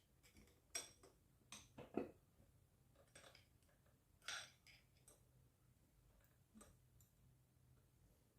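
Faint, scattered clicks and taps of pedestal fan motor parts being handled and fitted together during reassembly, with a slightly longer scrape about four seconds in.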